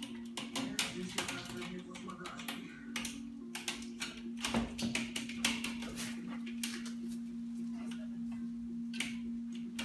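A cat's claws clicking and scratching on a mesh fly screen as it climbs, quick ticks coming thick for the first six seconds and only now and then after. A steady low hum sits under it.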